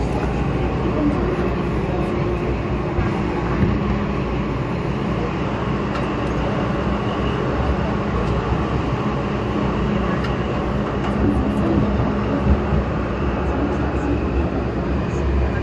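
MTR M-Train electric multiple unit running at speed through a tunnel, heard from inside the carriage: a steady rumble of wheels on rail with a faint motor hum.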